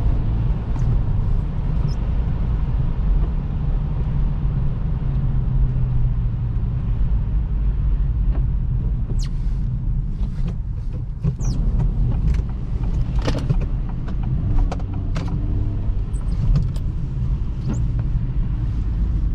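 Cabin noise of a 2023 Acura Integra driving on a cleared road: a steady low rumble of tyres and its turbocharged four-cylinder engine. From about halfway, a series of short sharp knocks comes roughly once a second.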